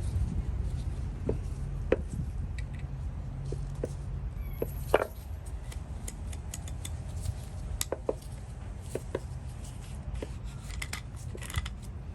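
Scattered small metallic clicks and knocks from handling and working a freshly oiled hand socket ratchet, coming closer together near the end, over a steady low hum.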